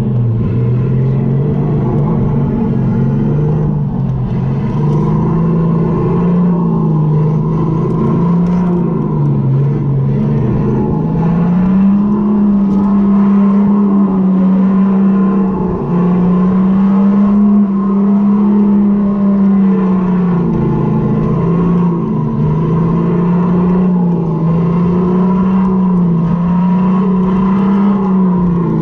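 Electric go-kart motor whining under the rider, its pitch rising and falling with speed, climbing about eleven seconds in and staying high for several seconds at a time, over a steady rush of wheel and wind noise.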